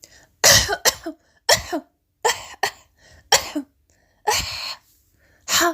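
A person coughing on purpose, a series of about seven short, breathy coughs with a longer one about four seconds in, demonstrating the throat sound behind the Arabic letter ha.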